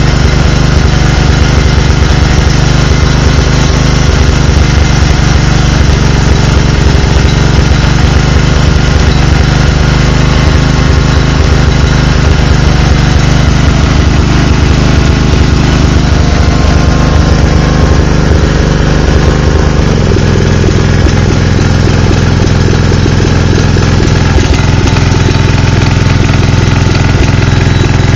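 Makita G 3500R generator's four-stroke engine running loud and close, unevenly, with its note shifting about twenty seconds in; the owner thinks the carburettor needs adjusting after the generator stood unused for a couple of years.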